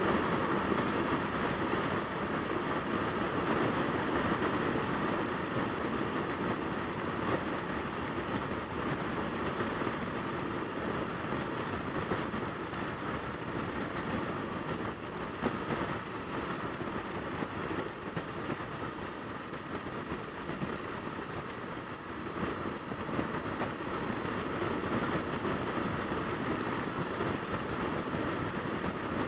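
Yamaha YZF600R Thundercat sport bike cruising at highway speed: its inline-four engine running steadily under a constant rush of wind and road noise on the microphone.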